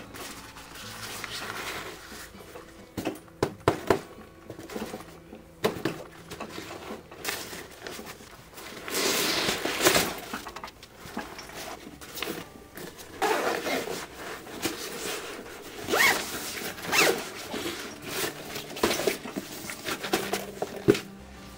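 Zippers on a nylon camera backpack being pulled open in a series of short and longer zips, mixed with fabric rustling and clicks as the padded camera insert and its dividers are handled.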